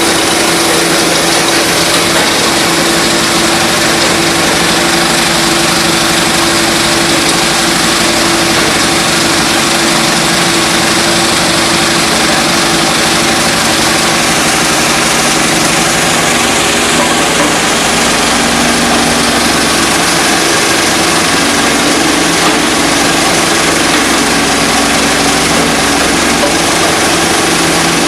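Stone crusher machine running: a loud, steady mechanical din with a constant hum, its pitch shifting slightly a little past halfway.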